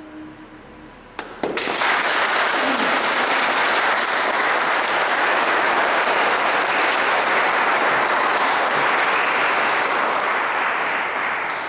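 Congregation applauding in a church: clapping breaks out suddenly about a second and a half in, holds steady and full, and starts to fade near the end.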